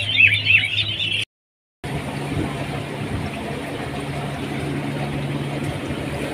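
Small caged birds chirping rapidly in high calls over a low steady hum, cut off by a brief dropout about a second in; after it only a steady mechanical hum remains.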